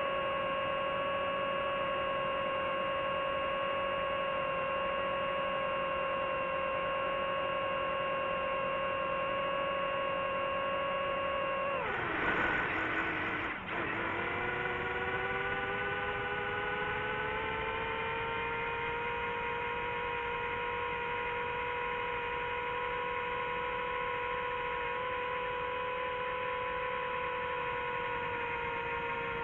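Drone motors and propellers whining at a steady pitch. About twelve seconds in the pitch drops sharply and jumps back up, as the throttle is cut and reapplied. It then settles a little lower and slowly climbs.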